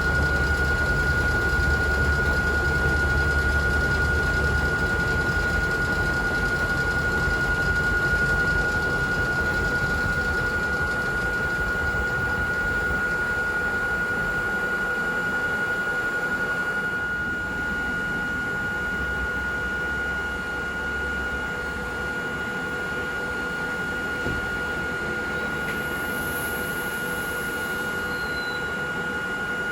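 A stationary old electric railcar's auxiliary machinery running, giving a steady high-pitched whine over a low hum; the low hum eases off after about five seconds.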